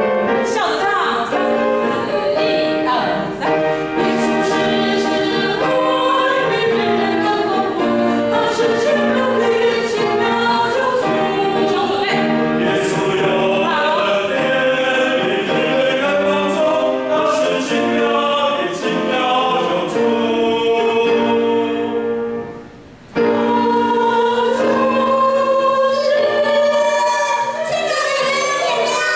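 Mixed choir of men's and women's voices singing a hymn, with a brief pause about 22 seconds in before the singing resumes.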